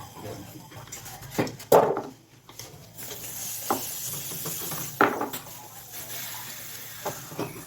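Metal clinks and knocks, a few at a time, the loudest near the second second and another about five seconds in, from tools or metal parts being handled, over a light hiss.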